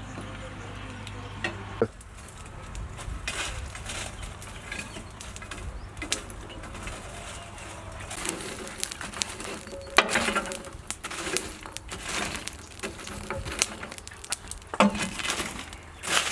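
Irregular knocks, clicks and clinks of cooking utensils and food being handled, loudest about ten seconds in.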